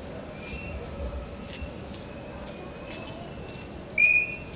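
Crickets chirping steadily in a high, continuous trill. About four seconds in, a brief high-pitched tone rises and holds for a moment, louder than the crickets.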